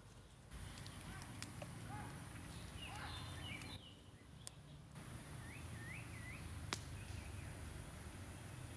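Bird calls: short chirping whistles, including a run of three quick calls about halfway through. A few sharp clicks and a steady low rumble sit underneath.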